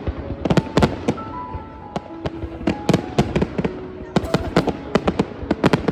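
Fireworks going off: clusters of sharp bangs and crackles, in bunches about half a second in, around three seconds in, and again from about four seconds in.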